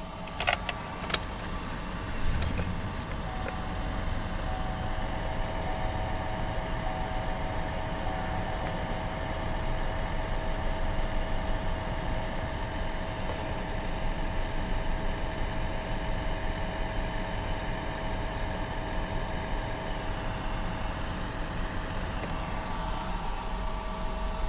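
Keys jangling in the ignition of a 2013 GMC Sierra 1500 pickup. Its engine starts about two seconds in and then idles steadily at around 1000 rpm.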